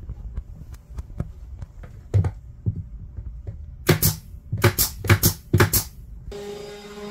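Pneumatic nail gun firing about seven nails into pine roof boards in quick succession over two seconds, each a sharp bang with a burst of air hiss, after light knocks and clicks of the boards being handled. Near the end, background music with chime-like tones comes in.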